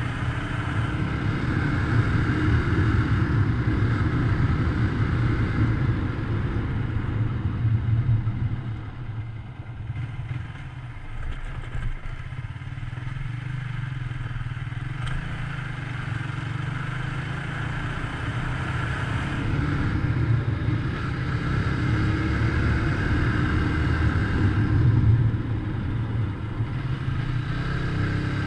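Motorcycle engine running under way on the road, heard from the rider's seat; it eases off for a few seconds about a third of the way through, then runs steadily again.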